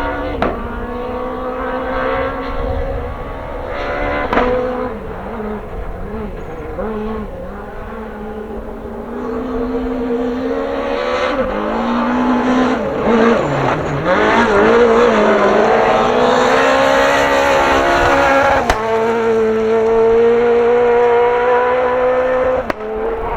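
Rally car engine at full effort on a special stage, its pitch climbing and dropping with gear changes and lifts, getting louder through the middle and holding a high steady note near the end, with a sharp click about three-quarters of the way through.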